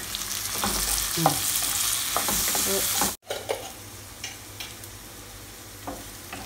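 Chopped onions frying in oil in a nonstick pan, sizzling while a wooden spatula stirs and scrapes them. The sizzle is loud for about three seconds, breaks off suddenly, then goes on as a quieter hiss with a few taps of the spatula.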